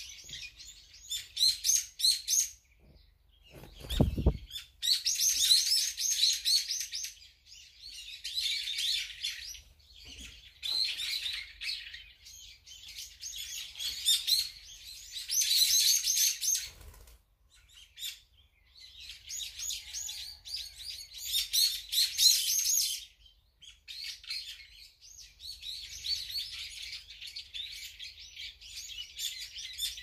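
Small songbirds chirping and twittering in repeated high-pitched bouts of a second or two each, with short gaps between; a brief low thump about four seconds in.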